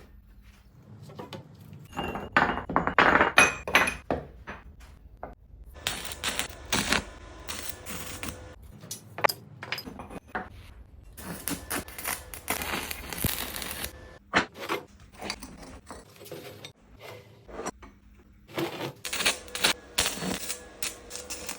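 Irregular tapping, knocking and light clattering of hand work on wood and metal pieces, with several stretches of scraping between the knocks.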